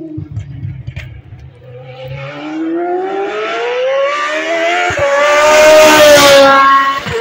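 Old GP2 single-seater's V8 racing engine at full throttle, approaching and passing close by. Its note climbs and grows louder as it nears, broken by two quick upshifts about five and seven seconds in, and it is loudest as the car goes past.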